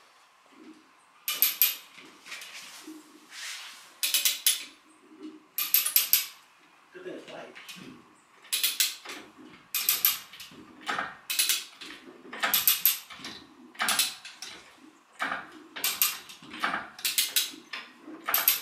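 A hand-worked ratchet mechanism clicking in short bursts of several clicks, about a dozen strokes at a steady pace of roughly one every second or so, as the boat rig is cranked or jacked up.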